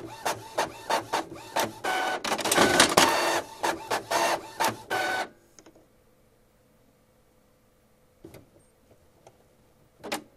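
Printer printing fast, with about three mechanical strokes a second and a louder, denser stretch of paper feed and movement in the middle. It stops abruptly about five seconds in, followed by a few faint clicks and a sharper one near the end.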